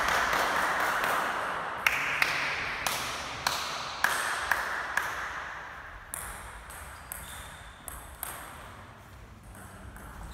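Table tennis ball clicking as it bounces on the wooden floor and table between points, a series of sharp ticks roughly half a second apart, ringing briefly in a large hall.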